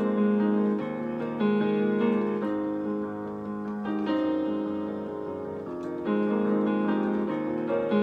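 Electronic keyboard played with both hands on a piano voice: held chords that ring on, a new chord struck every second or two.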